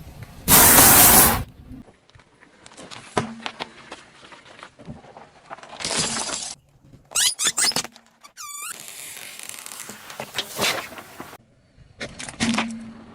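Things being crushed under a car tyre: a series of separate breaking and shattering sounds with quieter gaps between them, the loudest about half a second in.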